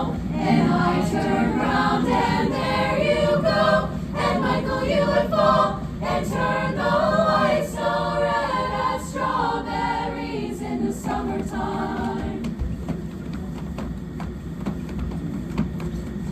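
A children's school choir singing in unison. The singing stops about twelve seconds in, leaving a steady low background hum.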